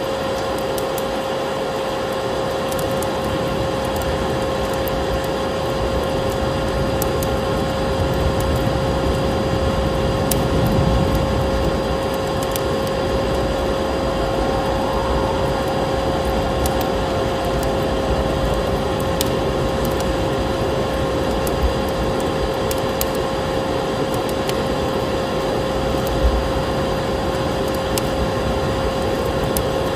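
A vacuum cleaner running steadily, with a constant whine over its rushing noise, and the sharp crackles and pops of a burning wood fire scattered throughout.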